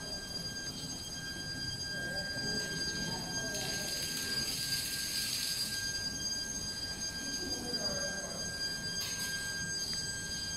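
Steady high-pitched electrical whine with a row of overtones over a low mechanical rumble, from the rotary drum dryer's drive. A burst of hiss rises a few seconds in and fades, and a shorter one comes near the end.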